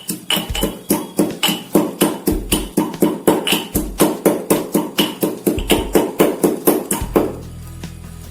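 Ginger and whole spices being crushed by pounding: a rapid, steady run of sharp strikes, about four a second, that stops about seven seconds in.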